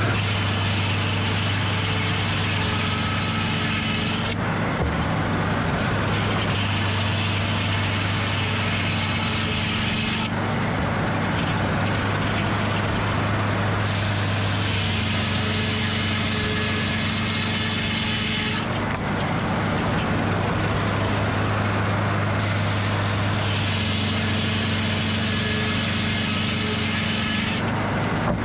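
Circle sawmill running steadily, its engine holding a low hum, while the circular saw makes repeated cuts: a louder hiss and whine lasting about four seconds, then a break of two to three seconds, repeating about every eight seconds.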